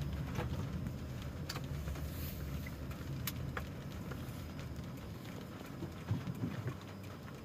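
Low, steady rumble of a car running, heard from inside its cabin, with scattered sharp taps of raindrops striking the windshield and roof at irregular intervals.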